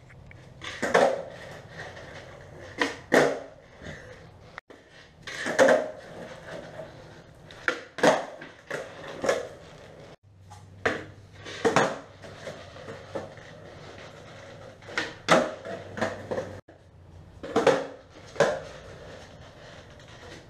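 Skateboard on a concrete garage floor: repeated sharp clacks of the tail popping and the board slapping down on landings, often in quick pairs, every second or two, each ringing briefly in the garage.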